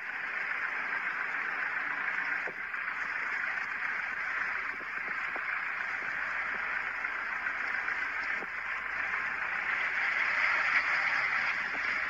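Steady rushing noise of a snowstorm on a road, with wind-driven snow and vehicles moving slowly over the snow, swelling a little near the end.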